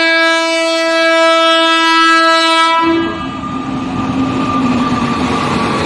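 Horn of an Indian Railways WAP-5 electric locomotive: one long, steady blast that cuts off about three seconds in. It is followed by the rumble and wheel clatter of the locomotive and coaches running past as the train pulls into the platform.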